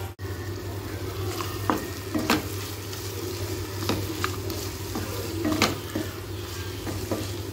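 Spatula stirring and tossing chicken chukka in a kadai, scraping and knocking against the pan several times at irregular intervals over a steady sizzle from the oily, nearly dry masala.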